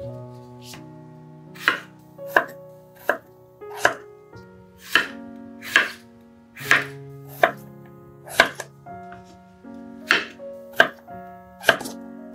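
Chef's knife chopping peeled raw potatoes on a bamboo cutting board: a sharp knock each time the blade cuts through and hits the wood, about one cut a second. Soft background music with held notes plays underneath.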